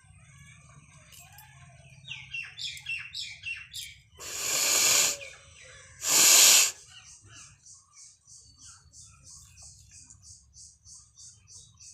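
A person forcing air hard out through the nose twice, a longer burst about four seconds in and a short, sharper, louder one about two seconds later, as in sneezing or nose blowing. Birds chirp in the background, with a quick, even high chirping, about four a second, from about seven seconds in.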